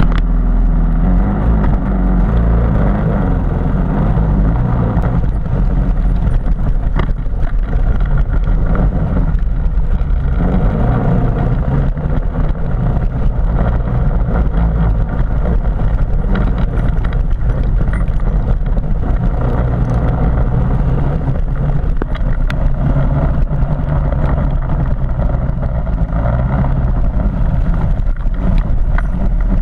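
Harley-Davidson MT350's single-cylinder four-stroke engine running as the motorcycle rides a wet, muddy trail, its note stepping up and down with the throttle, with scattered short knocks.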